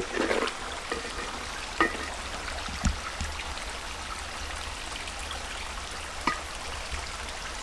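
A small stream running steadily, with a few faint clicks.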